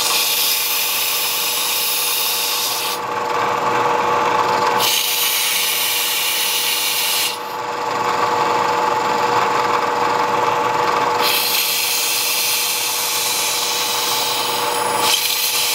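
Bridgeport milling machine running, its end mill cutting a fuller groove along a Bowie knife blade as the table feeds. A steady motor hum sits under a hissing cutting noise that comes and goes in stretches of a few seconds.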